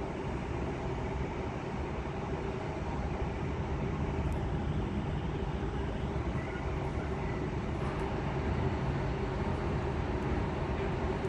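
Jet airliner engines rumbling steadily across an airfield, with a faint steady whine, growing slightly louder toward the end.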